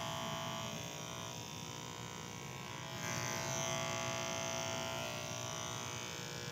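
Electric hair clippers buzzing steadily while cutting hair, a little louder from about three seconds in.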